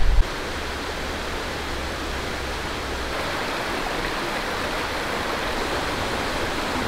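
Small rocky mountain stream rushing over boulders in shallow rapids: a steady, even rush of water.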